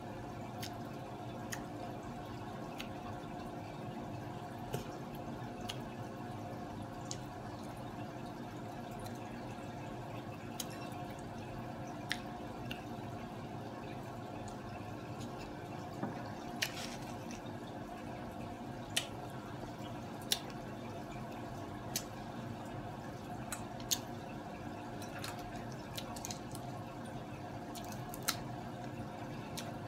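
Fish-tank filter running with a steady hum and trickling water, with scattered sharp clicks from picking apart crab and eating.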